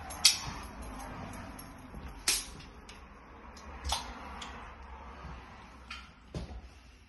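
Handling noise from a handheld phone microphone as it is carried through empty rooms: a low rumble with four sharp knocks and clicks, the loudest just after the start.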